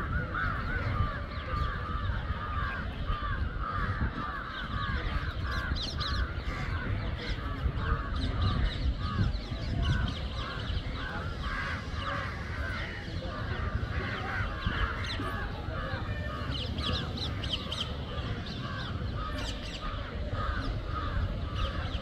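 A large flock of crows cawing continuously, many calls overlapping, with bunches of higher, quicker calls about a quarter of the way in and again near the end, over a low rumble.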